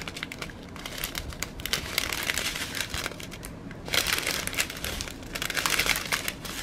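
Small clear plastic zip-lock bags of round resin drills crinkling as they are handled and shuffled. The crinkling swells louder about four seconds in and again near the end.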